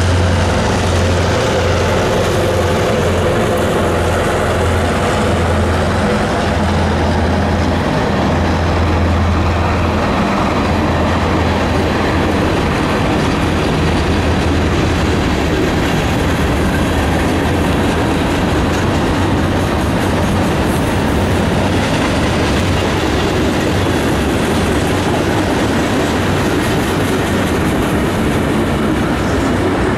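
Norfolk Southern freight train passing close by: the low, steady drone of the EMD GP38-2 diesel locomotives fades after about ten seconds, leaving a long string of covered hopper cars rolling past with wheels clicking over the rail joints.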